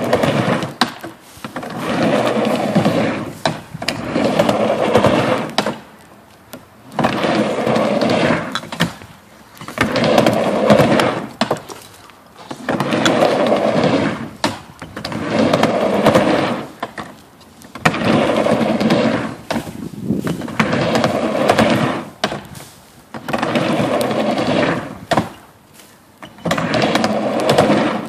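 Skateboard wheels rolling back and forth across a wooden half pipe: a rolling rumble on each pass, about every two to three seconds, dipping briefly as the board turns at the top of each wall.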